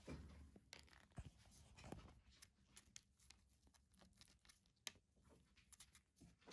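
Faint, scattered clicks and scratchy ticks of a kitten licking and nibbling at a paper plate, its paws shifting on the plate and cloth, with one sharper tick about five seconds in.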